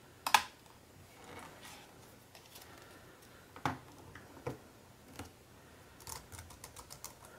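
Sharp plastic clicks and taps from handling a Logitech K750 wireless keyboard: a double click near the start, three single clicks spread through the middle, then a quick run of clicks near the end.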